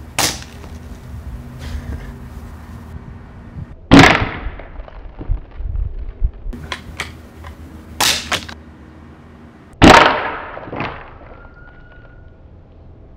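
A .177 pellet air rifle firing and its pellets striking an iPod nano, heard as a series of sharp cracks. The two loudest come about four and ten seconds in, and each rings out for about a second.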